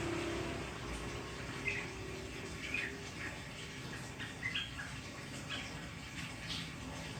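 A crocokan songbird giving short, scattered chirps, a song it has learned from magpie-robins and sparrows, over a steady background hiss.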